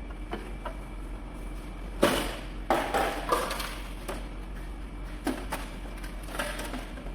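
Irregular knocks and taps of parts and tools being handled during reassembly of a split air conditioner, the sharpest about two seconds in and several lighter ones after it, over a steady low hum.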